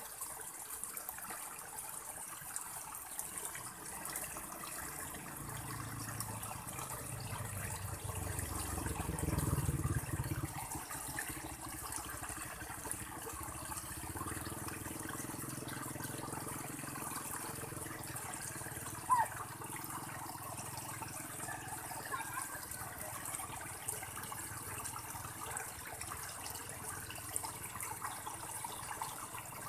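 Steady rush of water spilling over rocks into a small irrigation channel pool. A low rumble swells for a couple of seconds about a third of the way in, and there is a single short knock a little past the middle.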